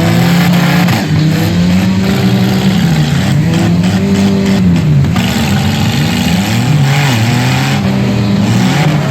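Several demolition derby cars' engines running at once, revving up and down in pitch over and over.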